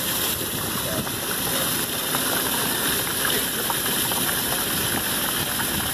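A strong jet of water from a fill hose pouring and splashing into a partly filled fiberglass pool, a steady rushing noise.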